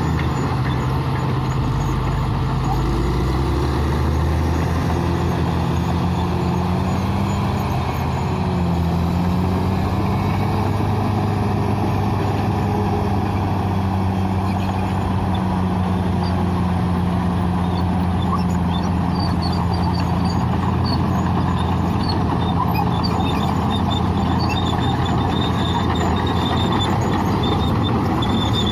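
Bulldozer's diesel engine running steadily at a heavy, low pitch that wavers slightly with load. Faint high-pitched squeaks come in over the second half.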